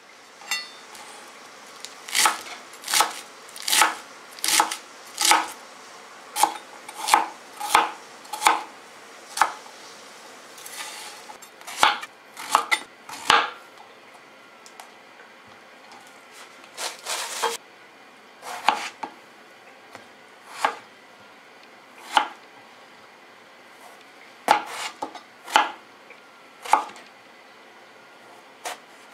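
Chef's knife slicing eggplant on a plastic cutting board: a series of sharp knocks as the blade cuts through and meets the board, about one or two a second, starting about two seconds in and broken by a few short pauses.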